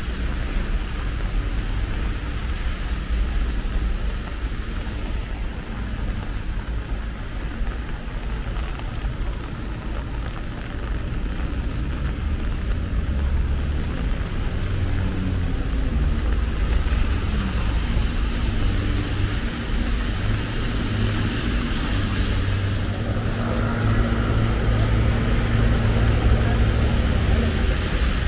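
Road traffic on rain-wet streets: tyres hissing on the wet asphalt over a low rumble of engines, with one vehicle's engine humming steadily in the second half.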